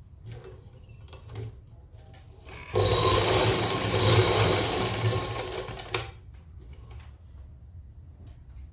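Sewing machine running at speed for about three seconds, stitching a seam through the frock fabric, starting near the three-second mark and stopping abruptly. A few light clicks from the fabric being handled before and after.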